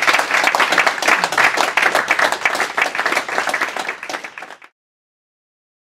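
Audience applauding with dense hand claps, fading out and cutting off abruptly a little over four and a half seconds in.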